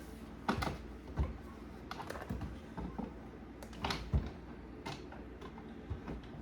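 Scattered light clicks and knocks of a thin wooden trim piece being handled and set against the hutch, about eight irregular taps with a couple close together near the middle.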